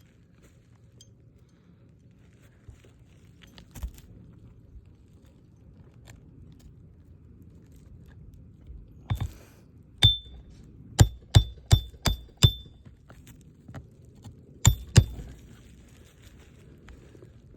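Hammer driving roofing nails to fasten a replacement asphalt shingle: a run of about ten sharp blows, most in quick succession near the middle and two more shortly after, each with a brief metallic ring.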